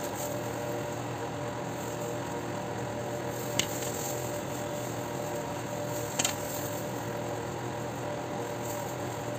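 A steady machine hum with a few faint held tones, broken by two short sharp clicks about two and a half seconds apart.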